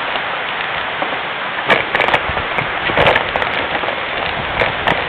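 A mountain bike riding down a trail, heard through a camera mounted on the bike. A steady hiss of tyre and wind noise runs throughout, and from a couple of seconds in come repeated sharp rattles and knocks as the bike jolts along.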